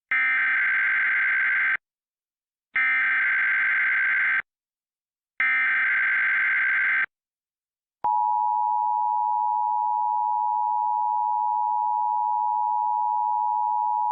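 Emergency Alert System header: three bursts of screeching digital SAME data tones, each about a second and a half long with a second's gap between them, encoding a Required Monthly Test. About eight seconds in, the steady EAS attention tone starts and holds.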